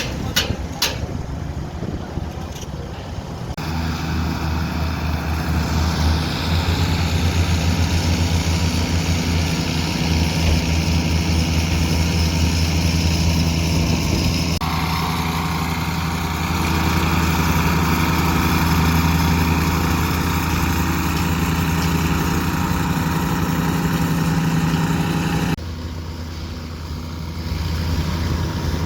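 Heavy diesel earthmoving machine engine running with a steady low drone. The engine sound changes abruptly a few times.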